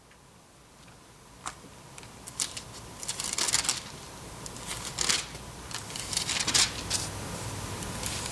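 Bible pages being leafed through: a run of short, crisp paper rustles that start about a second and a half in and come thickest in the second half.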